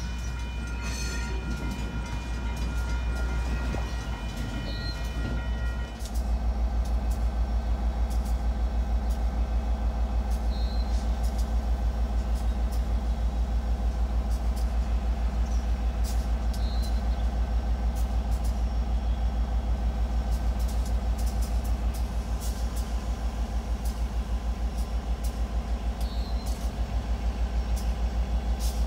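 Diesel locomotive air horn sounding a steady chord for about six seconds as the train nears the grade crossing, then the locomotives' loud low rumble with an even pulsing beat as they approach and reach the crossing.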